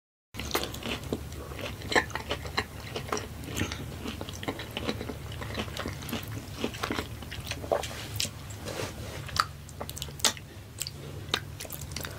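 Close-miked chewing of fried mozzarella sticks, with many small wet clicks and crackles from the mouth, over a low steady hum.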